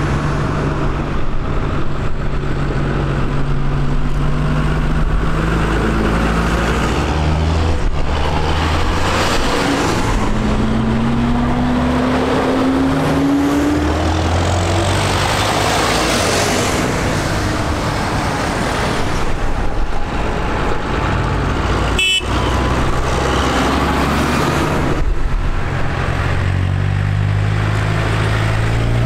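Farm tractors driving past one after another, their diesel engines running steadily. One engine rises in pitch as it accelerates away, and there is a short sharp click about two-thirds of the way through.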